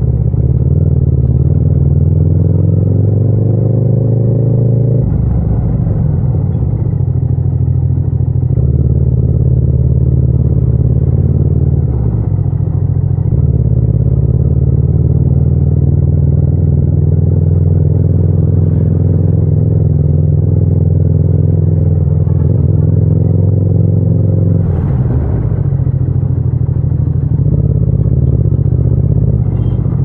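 Yamaha MT-07's 689 cc parallel-twin engine running at low road speed in low gears, rising in pitch as the throttle opens and dropping back a few times as it is closed or the gear changes.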